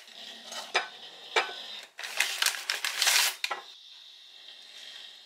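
Tea being made: a teaspoon and tin clinking against ceramic mugs, two sharp clinks about half a second apart, then a second and a half of quick clattering as the tea is stirred.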